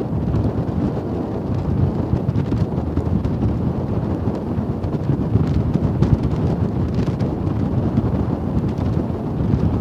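Wind buffeting the microphone: a loud, steady low rumble that flutters throughout.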